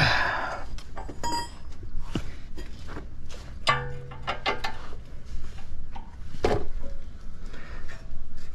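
Metal hand tools clinking and knocking on the front suspension as a wrench tightens a new lower ball joint nut: a run of sharp clicks and knocks, a few of them ringing briefly, the longest ring about four seconds in.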